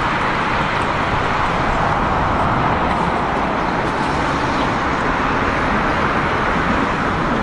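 Steady loud roar of a jet airliner's engines, which cuts off suddenly at the end.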